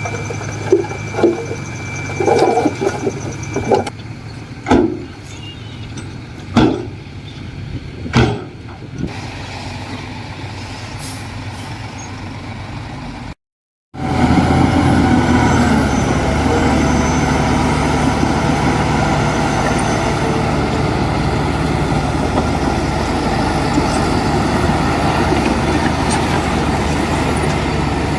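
Heavy diesel earthmoving machinery running, with a series of sharp clanks over a quieter engine at first. After a brief break in the sound, the engine runs louder and steadily.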